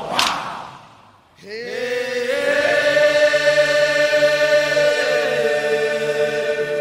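Many voices together: a shout fades out, and from about a second and a half in a group of voices holds one long, loud note for several seconds.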